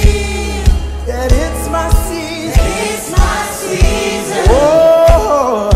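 Gospel choir singing with a live band. A drum kit beats steadily about every two-thirds of a second under electric bass, and the bass holds a low note for the first two seconds.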